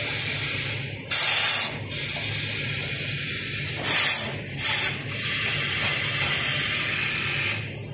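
Compressed air hissing out of a boiler auxiliary damper's pneumatic actuator valve in three short, loud bursts, one about a second in and two close together around four seconds in. Under it runs a steady hiss and low hum.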